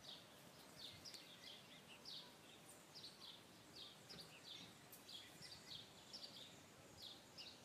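Faint birdsong: short, high, falling chirps repeating a couple of times a second over a quiet hiss of outdoor background noise.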